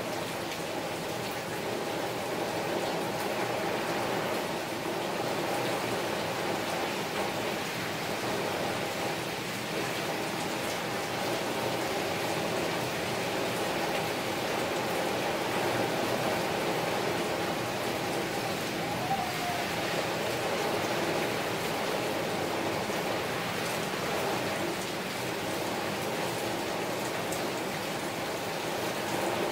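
Steady rain falling, an even hiss of drops with no let-up.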